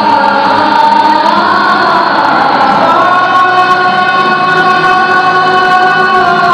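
A group of voices singing together, a woman's and a man's voice leading with backing singers, holding long notes; the tune steps up in pitch about a second in and again about three seconds in.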